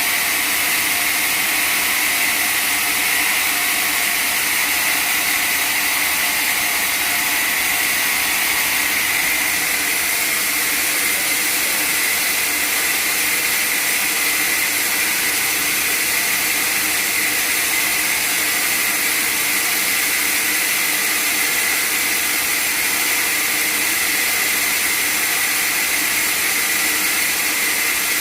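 Sawmill saw running steadily: a continuous hiss with a steady high-pitched whine that does not change.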